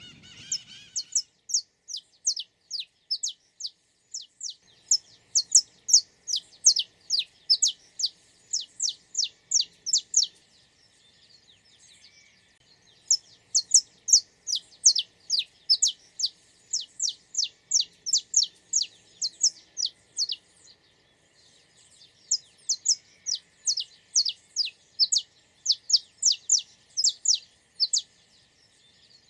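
A bird singing long runs of quick, high, downward-sliding notes, about five a second, in four phrases separated by short pauses.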